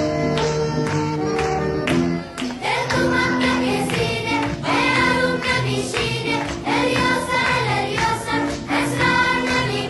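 Background music: an instrumental passage at first, with singing voices coming in about two and a half seconds in.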